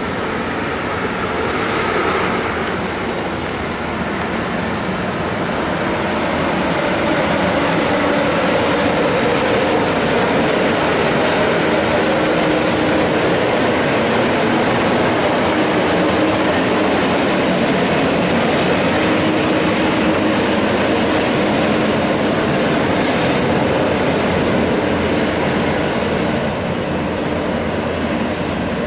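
Street traffic with heavy diesel semi-trucks pulling end-dump trailers: steady engine and road noise that grows a little louder after several seconds and holds.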